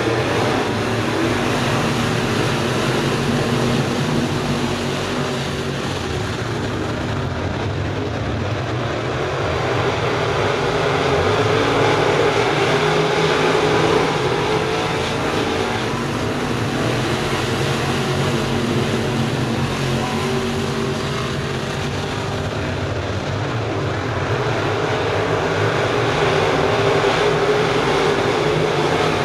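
A pack of dirt-track crate late-model race cars running flat out together, their V8 engines making a dense, steady drone. It swells louder about halfway through and again near the end as the pack comes around.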